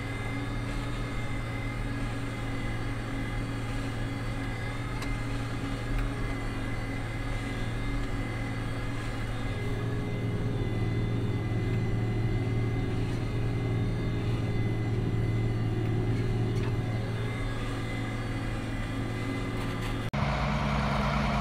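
The International 7288 2+2's 466 intercooled six-cylinder diesel running steadily under load as the tractor pulls a plow, heard from inside the cab. Near the end the sound changes abruptly to the tractor heard from outside, a little louder.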